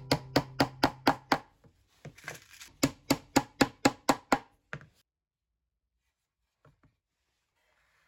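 Hammer tapping small nails through a metal strip into a pine birdhouse: quick, even strikes about four a second in two runs with a short pause between, stopping abruptly about five seconds in. Two light knocks near the end.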